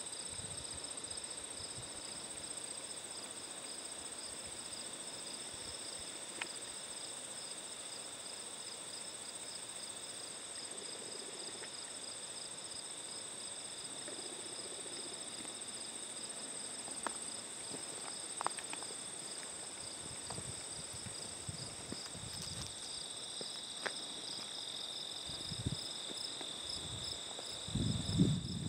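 Meadow insects singing in a steady chorus of several high-pitched layers, one of them pulsing rapidly. A few soft low thumps come near the end.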